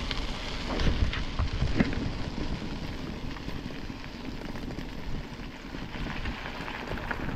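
Mountain bike riding along a rough road: steady tyre rolling noise with scattered crackles and small knocks, the sharpest about one and two seconds in, and wind rushing on the action-camera microphone.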